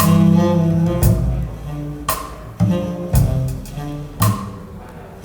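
Music played back over hi-fi loudspeakers, with a deep sustained bass line and a sharp percussive hit about once a second.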